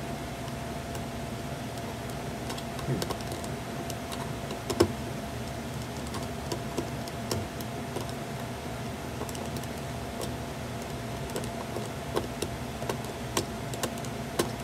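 Scattered small clicks and taps of batteries being fitted into a Woody talking toy's plastic voice box, the sharpest click about five seconds in, over a steady hum.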